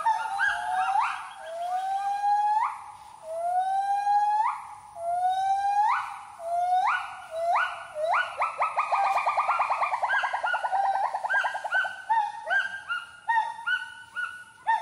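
Gibbon calling: a series of rising hoots about one a second that speed up into a fast run of short notes about eight seconds in, followed by shorter, quicker notes.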